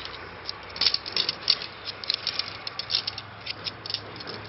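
Shock-corded tent pole sections clicking and rattling against one another as they are folded into a bundle, in quick irregular clacks.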